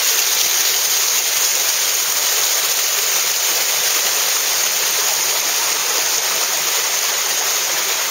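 Small mountain waterfall and stream, water falling over rocks in a steady, loud rush.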